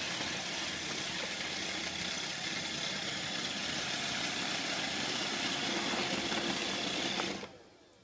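iRobot Roomba 555 robot vacuum running on a wooden floor: a steady whir of its suction fan and brushes, running normally after repair. The sound fades out near the end.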